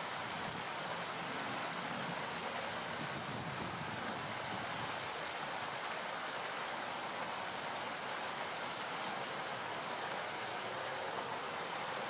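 Steady rush of flowing stream water, an even hiss with no separate events.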